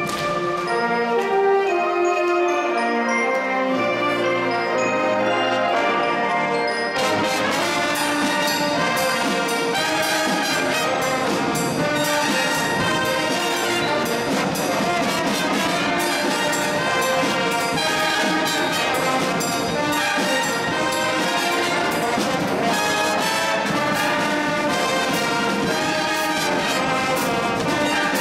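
Cadet band of brass, saxophones and drums playing a piece. It opens with a thinner passage of held brass notes, then about seven seconds in the full band comes in, with snare and bass drums beating steadily under the brass.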